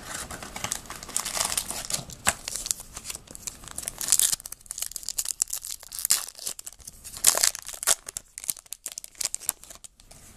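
A stack of 2012 Topps Archives baseball cards being handled and flipped through: a run of crinkling rustles and short sharp crackles, loudest about four and seven seconds in, thinning out near the end.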